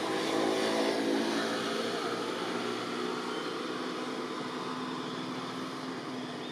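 A motor vehicle's engine running steadily, loudest about a second in and then slowly fading.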